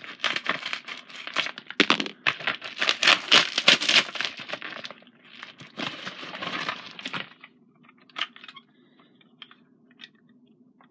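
A package being torn open by hand: packaging ripping and crinkling in quick bursts for about seven seconds, then a few light clicks and rustles.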